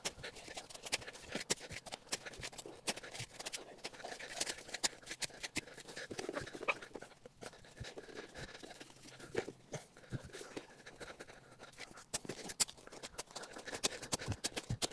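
Shovel blade scraping and crunching into soil while a small hole is dug out, with irregular scrapes and crunches of loose dirt being moved.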